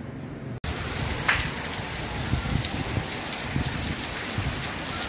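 Heavy rain pouring onto wet paving and a waterlogged street: a dense, steady hiss of falling rain with scattered splashes. It starts abruptly about half a second in.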